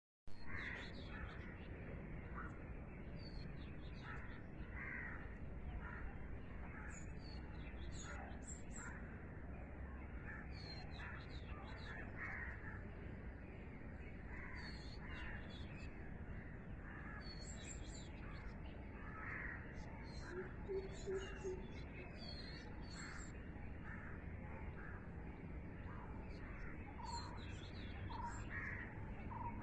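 Birds calling throughout, a mix of repeated short, lower calls and higher, thin chirps, over a steady low rumble.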